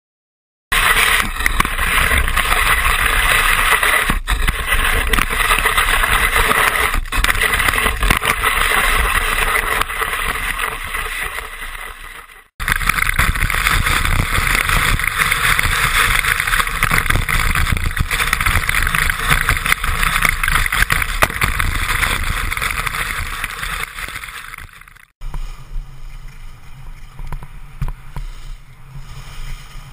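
Skis hissing through snow with wind rushing over the action camera's microphone during a downhill run. The sound cuts off abruptly twice, about 12 and 25 seconds in, and is quieter and lower in the last few seconds.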